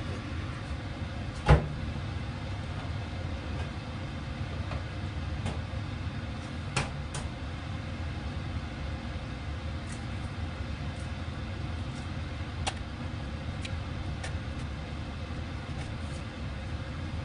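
The heavy enameled cast-iron lid of a Staub cocotte set down onto the pot with one sharp clank, about a second and a half in, over a steady low rumble. Later, a few light taps and clicks as eggs are cracked against a glass bowl.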